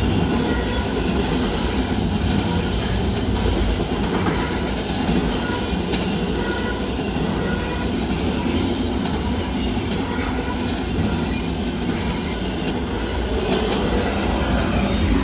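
Norfolk Southern double-stack intermodal freight train's well cars rolling past: a loud, steady rumble of steel wheels on rail, with a faint high wheel squeal and occasional clicks.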